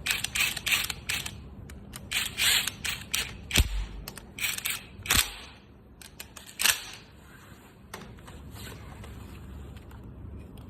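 A run of clicks, clatters and rattles from tools and small parts being handled, with two sharp knocks in the middle; it goes quiet after about seven seconds.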